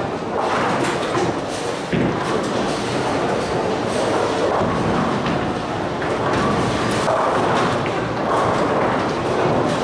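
Steady din of a busy bowling alley: balls rolling down the lanes and pins clattering across many lanes at once, with a sharp knock about two seconds in.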